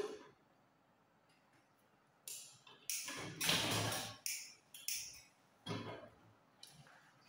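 Metal cooking pots and their lids clanking and scraping on a gas cooker's grate as the pots are handled and a lid is lifted: one knock at the start, then a run of clanks from about two seconds in, the loudest a longer scrape and clatter in the middle.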